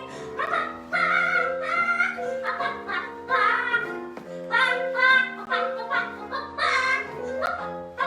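Children's song playing: a woman's singing voice in short melodic phrases over an instrumental backing track.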